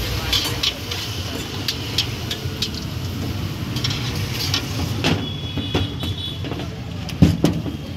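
Bhatura deep-frying in a kadai of hot oil, crackling and sizzling, over a steady low rumble. There is a single louder knock about seven seconds in.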